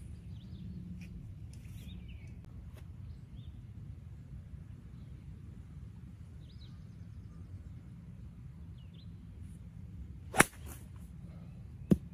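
A three wood's clubhead striking a golf ball with one sharp crack about ten seconds in, a topped shot, followed about a second and a half later by another sharp click. A steady low wind rumble on the microphone runs underneath.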